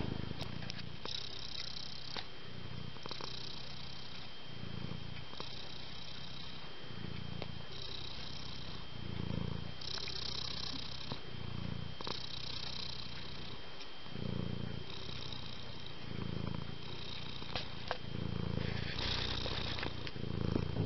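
Domestic cat purring steadily, the purr swelling and easing in slow waves about once every two seconds, in time with its breathing.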